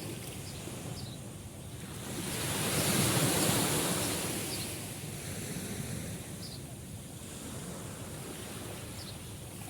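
Sea waves washing onto a shore: one wave swells up about two seconds in, breaks and draws back over the next few seconds, followed by a gentler surge.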